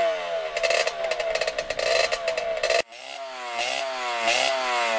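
Dirt bike engine being revved, its pitch climbing and falling again and again. It cuts off abruptly a little under three seconds in, then comes back with short throttle blips before settling.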